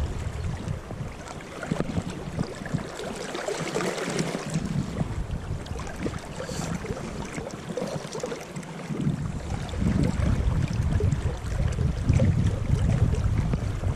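Fast river water rushing past, with wind buffeting the microphone in low rumbles that are strongest at the start and again from about nine seconds in.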